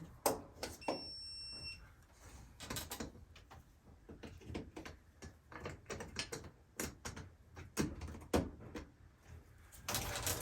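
An electrical voltage tester gives a brief high-pitched beep about a second in, signalling that it is picking up voltage on the wire under test. Scattered light clicks and knocks of wires and tools being handled fill the rest.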